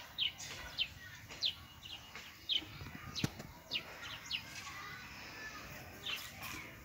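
A bird calling repeatedly: short, high chirps sliding down in pitch, about one or two a second, with a single sharp click about three seconds in.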